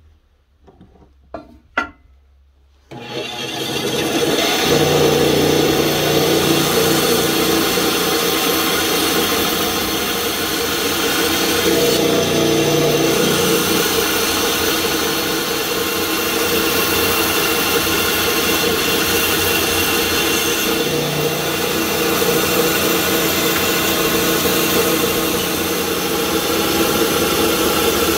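A few light clicks, then a benchtop bandsaw starts running about three seconds in and runs steadily with a hum while it cuts a row of slots into a wooden block.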